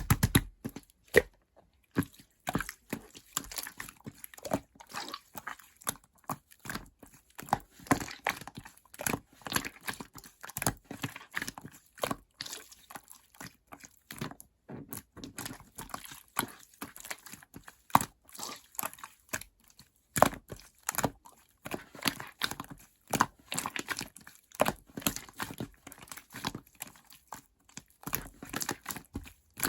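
Marbled slime being squished and pressed by hand: a fast, irregular run of sticky clicks and pops.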